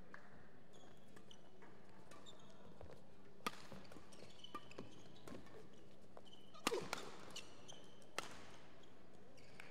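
Badminton rally: a few sharp cracks of rackets striking the shuttlecock, with short squeaks of shoes on the court floor between them.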